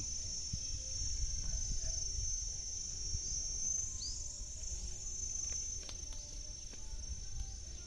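Insects droning steadily at a high pitch, over a low rumble, with two short rising chirps about three and four seconds in.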